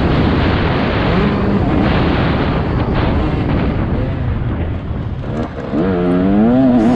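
Motocross dirt bike engine running hard at race pace under a loud noisy haze. The engine note eases off briefly about five seconds in, then revs up and down again near the end.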